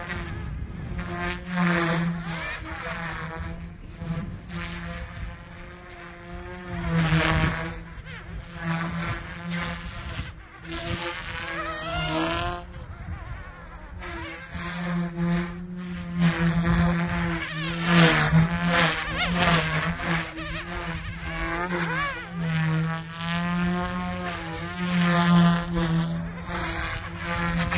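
Small electric RC helicopter, a Goosky S2 on a 3D-printed airframe, flying fast. Its motors and rotors make a buzzing whine whose pitch swings up and down over and over as it swoops past.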